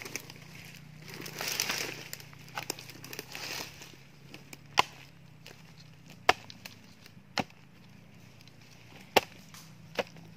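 A hoe chopping into soil among dry leaves and twigs: five sharp strikes about a second or so apart in the second half. They follow a rustle of dry leaves and twigs near the start.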